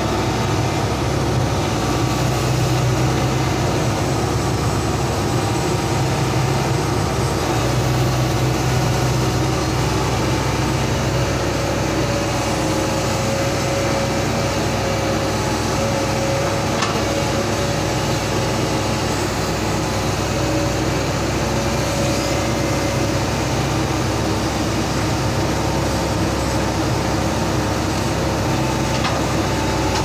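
Hitachi hydraulic excavator's diesel engine running steadily as its boom and arm move, with a steady higher tone coming in about halfway through.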